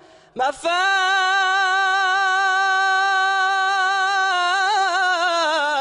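Solo unaccompanied male voice chanting an Islamic devotional song in praise of the Prophet (inshad). After a quick breath about half a second in, he holds one long note with a steady vibrato, then ornaments it with quick turns near the end and slides down in pitch.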